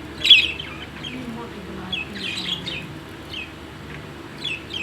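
Budgerigars chirping: short, sharp, downward-sweeping calls, the loudest about a third of a second in, with a cluster around two seconds in and more near the end.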